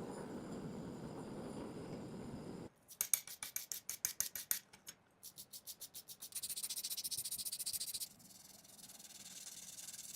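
Quick back-and-forth rubbing strokes of a hand tool on metal, about seven a second in two short runs, then a steady hissing rub for a couple of seconds. A low, even hiss fills the first few seconds.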